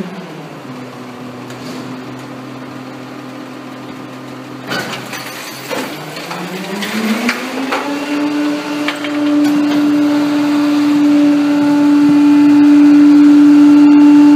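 Pak-Mor rear-loader garbage truck's engine dropping to a low idle, then about six seconds in revving up and holding a high, steady, loud whine as the packer's hydraulics are engaged to compact the load. A couple of clanks come from the rear packer mechanism about five seconds in.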